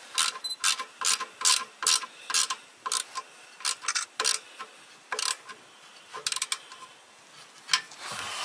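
Wrench on an exhaust pipe flange nut, clicking about twice a second as it is worked back and forth, then a few scattered clicks after about five seconds.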